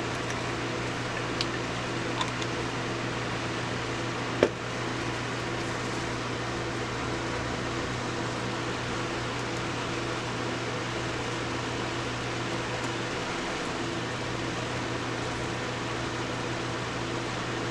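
Steady fan-like hiss and hum of room background noise, with two light ticks early and one sharp click about four and a half seconds in.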